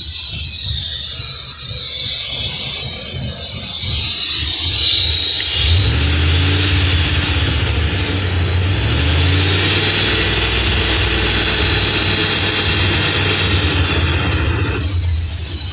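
Cammed 2002 Ford Expedition V8 running with an uneven, wavering idle. A fast, rhythmic high-pitched squeak rides over it, which the owner cannot place. A hiss fills the first few seconds, and the engine note grows louder after about six seconds.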